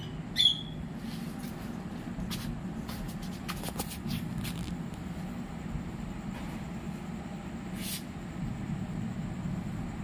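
A budgerigar gives one short squawk about half a second in, over a steady low hum. A few faint clicks follow.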